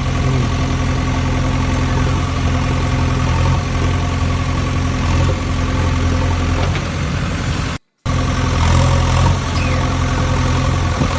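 A vehicle engine idling with a steady hum. It cuts out completely for an instant about eight seconds in, then carries on.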